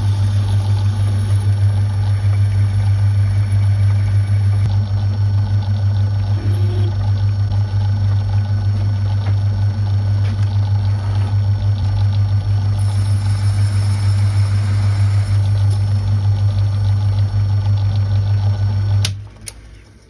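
Small lathe's electric motor running steadily with a strong low hum while a twist drill in the tailstock chuck bores into the end of a small pin held in a collet. The motor is switched off about a second before the end and the hum dies away.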